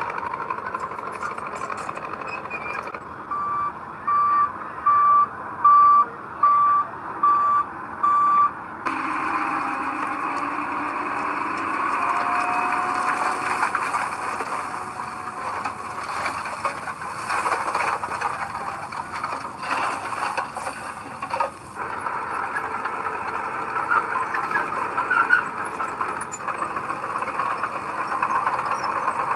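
Heavy vehicle's reversing alarm beeping about seven times, a little under a second apart, starting about three seconds in; after it stops, the diesel engine runs on steadily and somewhat louder.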